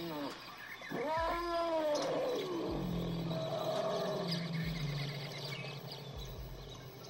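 Elephant calling: a loud call that rises then falls in pitch about a second in, followed by a lower, longer, steadier call that fades toward the end.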